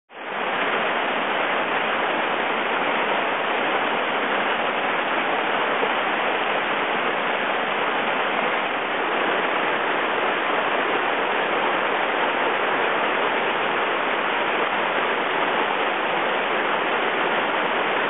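Whitewater river rapids rushing, a dense, steady noise of churning water that swells in over the first half second and then holds even.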